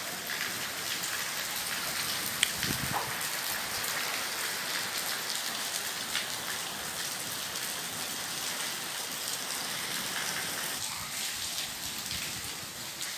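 Heavy rain falling steadily on a concrete courtyard and rooftops, with one sharp click about two and a half seconds in.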